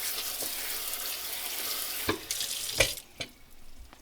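Tap water running onto celery stalks in a basket at the kitchen sink as they are rinsed, with a couple of knocks. The water shuts off about three seconds in.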